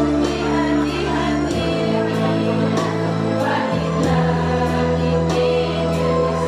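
Choir singing over backing music with sustained bass notes and a steady beat.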